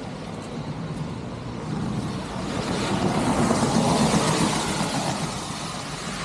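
A road vehicle passing by: its noise rises to a peak about four seconds in and then fades.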